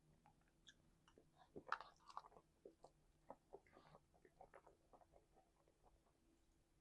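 Faint, close-up chewing: a person's mouth working food, with many small irregular wet clicks and smacks, a little louder about two seconds in.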